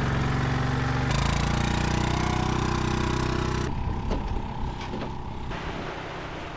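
Four-wheeler (ATV) engine running hard under throttle, its pitch climbing steadily, then dropping off abruptly about three and a half seconds in to a lower, rougher running sound.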